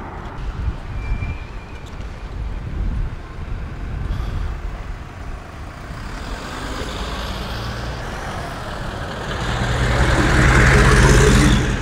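Wind rumbling on the microphone of a camera riding along on a bicycle, with road traffic around it. Near the end a motor vehicle's engine grows louder and passes close by.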